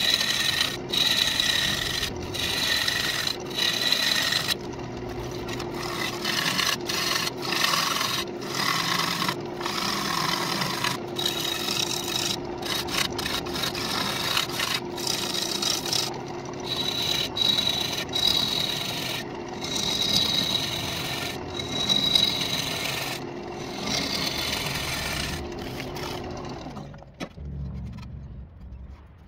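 Gouge cutting the inside of a spinning walnut bowl on a wood lathe: a rough scraping hiss of wood being cut, broken by frequent brief gaps. Near the end the cutting stops and the sound falls away as the lathe stops.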